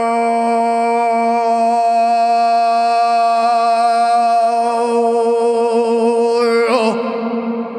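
Man throat singing: one steady drone with strong overtones that swell and shift above it, echoing in a concrete bunker. Near the end the voice wavers and breaks off, and the echo rings on.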